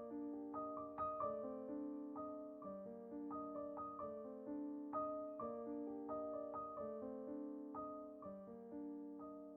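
Quiet piano music: a gentle melody of struck notes ringing over a repeating accompaniment.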